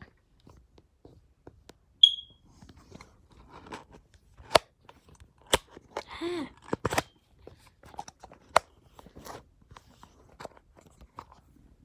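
Close handling noise from a phone and its stand being fiddled with and adjusted: scattered clicks, knocks and rubbing, with a sharp click about two seconds in and a short squeak around six seconds.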